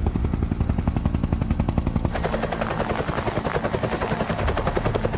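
Helicopter flying, its rotor chopping in a fast, even beat. A high whine and hiss come in about two seconds in.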